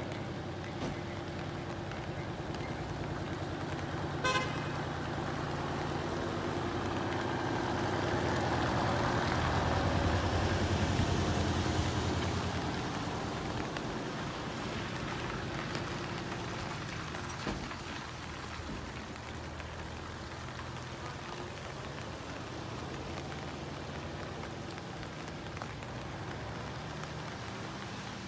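Heavy-haul tractor unit's diesel engine running as it slowly tows a subway car past, growing louder around the middle of the pass and then easing off, with tyre hiss on the wet road. A brief horn toot sounds about four seconds in.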